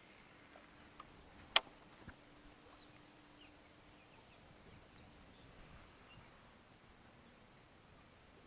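A single sharp click about one and a half seconds in, with two fainter ticks around it, over a quiet background with a faint steady hum.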